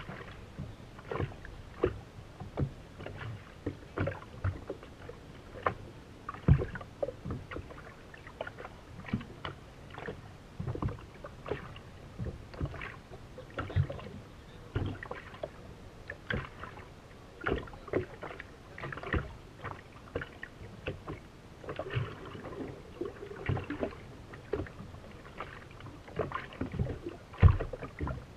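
Small waves slapping irregularly against the hull of a racing powerboat as it sits drifting, one knock every half second to a second.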